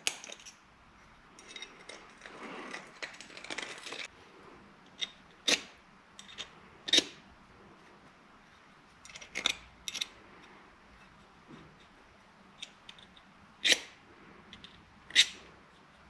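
Hand deburring tool scraping burrs off the edges of drilled holes, a soft rasping for a few seconds, then several sharp separate clinks as the parts are handled on the bench.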